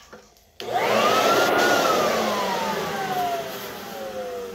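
Earthwise corded electric leaf blower switched on about half a second in: its motor and fan rush up, the whine rising for about a second, then falling steadily in pitch and loudness as the motor winds down.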